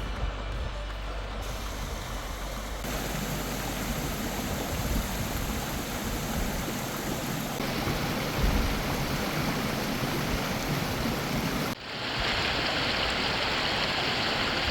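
Rushing river water, with wind rumbling on the microphone. The sound changes abruptly several times and is loudest and brightest near the end.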